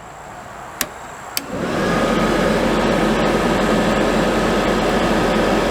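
Two light clicks, then about a second and a half in the blower fan of a Dometic RV furnace starts and runs with a steady whoosh and faint whine. The fan runs but the sail switch is not passing power, the fault keeping the burner from lighting, which the technician takes for a bad or hung-up sail switch.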